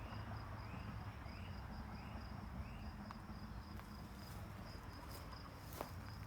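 Insects chirping outdoors: a steady, rapidly pulsing high trill, with a short series of four rising chirps in the first three seconds and a few faint clicks later on.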